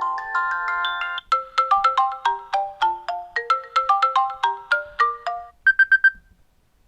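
iOS 7 ringtone previews playing. One electronic melody ends about a second in, and the next starts as a quick run of short plucked notes, finishing with four rapid high beeps near the end.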